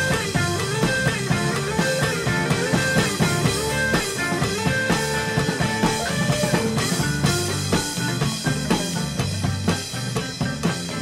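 Rock music with electric guitar and drums, the guitar lines bending and wavering in pitch over a steady beat.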